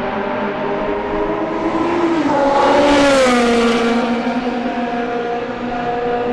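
Historic Formula One racing car engine passing at speed. It is loudest about three seconds in, where its note drops in pitch as it goes by, and then holds a steady note.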